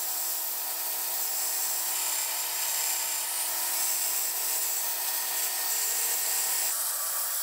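Belt grinder running with the steel of a billhook blade pressed against the abrasive belt: a steady grinding hiss over the machine's hum, throwing sparks. The grinding eases slightly near the end.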